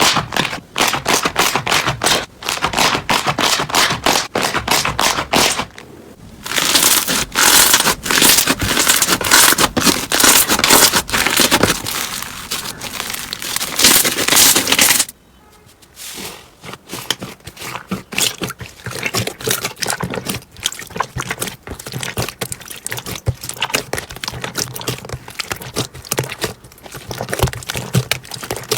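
Slime being squished and worked, making dense crackling and popping. The sound changes abruptly twice, about a fifth and about halfway through, as one clip cuts to the next.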